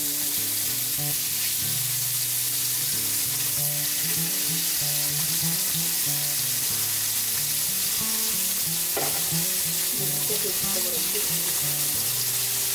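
Pieces of hilsa fish, including the head and tail, sizzling steadily as they fry in oil in a steel karahi over a gas flame.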